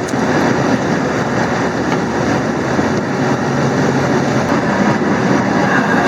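Steady engine and road noise inside the cab of a 26-foot moving truck driving along.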